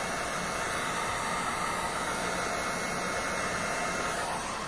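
Electric heat gun running steadily, an even rush of blown hot air and fan noise, as it reheats a rolled scrap of Worbla thermoplastic. It cuts off abruptly at the very end.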